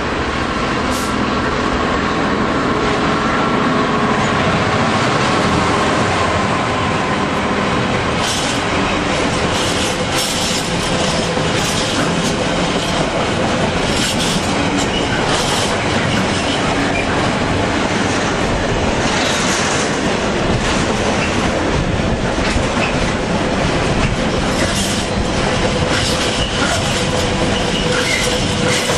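GBRf Class 66 diesel locomotive, a two-stroke V12, running through and passing close by with an intermodal container train. From about eight seconds in, its engine gives way to the clatter of the container wagons' wheels over rail joints, with some wheel squeal.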